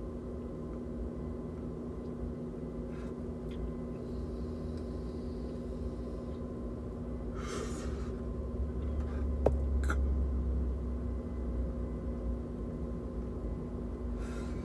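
A person drawing on a disposable vape and blowing out a breathy puff of vapour about halfway through, over a steady hum with a few fixed tones inside a car cabin; two small clicks follow the exhale.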